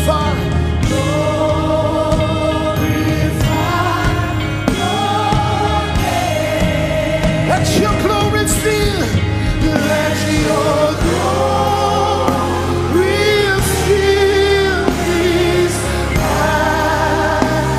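Live gospel worship music: a band playing while a choir and congregation sing long, held melodic lines.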